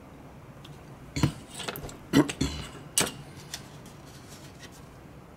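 Workbench handling noise: a quick run of sharp knocks and clattering clicks as a plastic model part and a plastic glue bottle are handled and set down, the loudest three about one, two and three seconds in.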